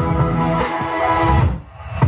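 Music with a bass beat and sustained notes, dropping out briefly near the end before coming back.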